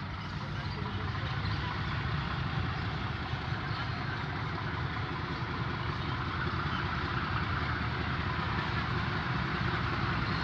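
PHA-20 diesel-electric locomotive's engine running as it hauls a passenger train slowly along the platform, a steady low rumble that grows gradually louder.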